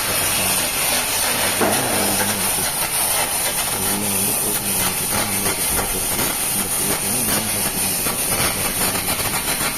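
Loud, steady hissing noise from metal repair work on a cracked steel crane boom.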